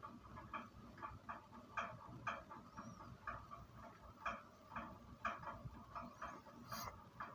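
Faint clicking of computer keyboard keys and a mouse button: short, irregular taps about twice a second, as code is typed and edited.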